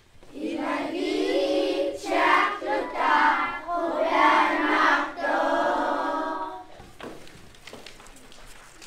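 A group of children singing together in phrases, stopping about two-thirds of the way in.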